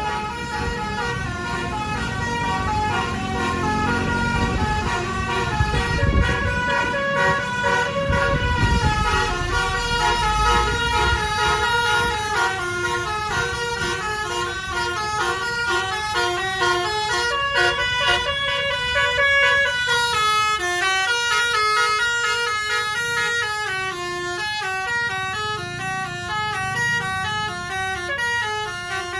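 Bus 'basuri' telolet horn playing a long, unbroken melody of quick stepping notes. A low engine or traffic rumble sits under it about six to eleven seconds in.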